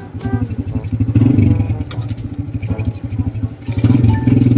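Motorcycle engine of a tricycle running close by with a fast, even beat, revving up about a second in and again near the end.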